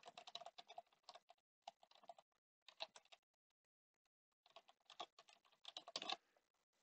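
Computer keyboard typing in short runs of faint keystrokes, pausing for about a second and a half in the middle before a final run of keys.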